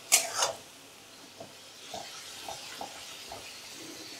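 Two quick clatters of a utensil against the pan at the start, then potatoes, onions and masala sizzling faintly in the pan on low flame with a few soft ticks, the spices being roasted (bhuna).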